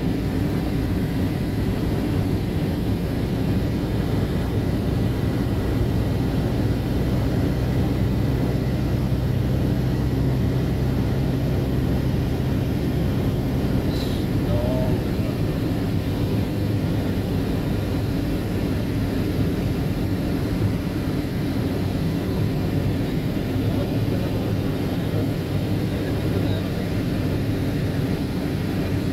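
Road vehicle driving at a steady cruising speed: a continuous low engine hum over tyre and road noise, the engine note dropping a little about halfway through.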